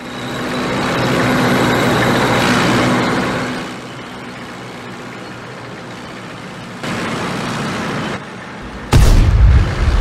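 Dubbed tank sound effects: a steady engine hum that swells over the first few seconds and then drops to a lower level, followed near the end by a sudden loud, deep boom, like a tank gun firing or a shell exploding.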